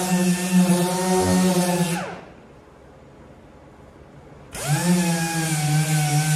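Electric power sander's motor running steadily, switched off about two seconds in and winding down, then switched back on about two and a half seconds later, spinning up quickly to full speed.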